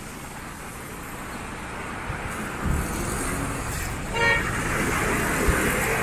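Road traffic on a rain-wet street: a steady hiss of tyres and engines that grows louder as a vehicle comes close, with a brief car horn toot about four seconds in.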